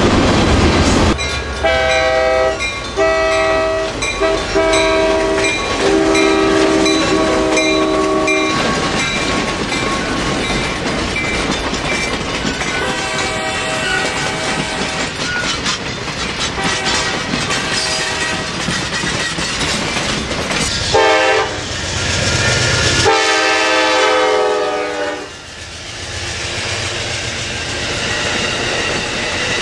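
Diesel locomotive multi-chime air horn blowing a run of short blasts, then more blasts later on, over the rumble and clatter of a moving train on the rails.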